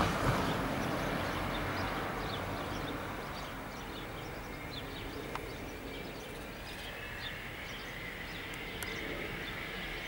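Distant jet noise from a Cessna Citation S/II's Pratt & Whitney JT15D turbofans as it slows on the runway after landing: a steady rumble that fades over the first few seconds, with a faint steady whine coming up in the second half. Birds chirp throughout.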